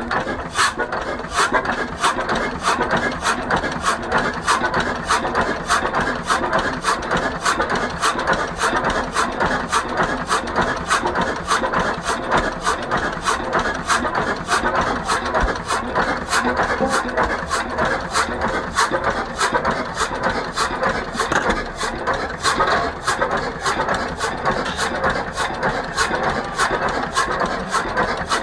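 1925 Hein 18 hp hot-bulb marine engine running slowly, with a steady, even knock of about three beats a second.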